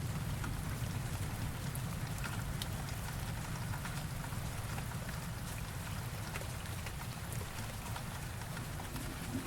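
Steady rain with scattered drops ticking, over a low rumble of thunder that slowly dies away.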